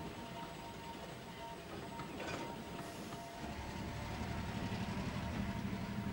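Scale-model railway locomotive running on track: a steady low motor and wheel rumble, with a brief hiss about two seconds in. The rumble grows louder and more pulsing from about three seconds in.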